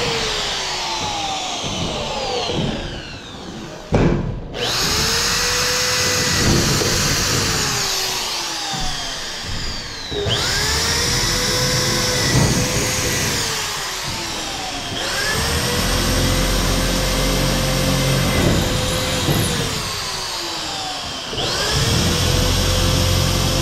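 Corded electric screw gun driving screws overhead into ceiling boards. Its motor spins up to a steady whine, runs for several seconds and winds down, about four times over.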